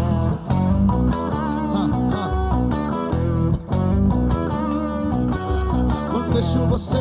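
Live forró band playing an instrumental passage led by guitar, over bass and a steady drum beat.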